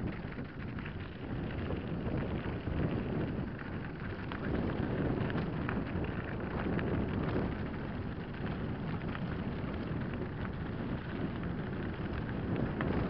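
Mountain bike rolling fast down a loose gravel track: wind buffets the camera microphone over the crunch and rattle of the tyres on stones.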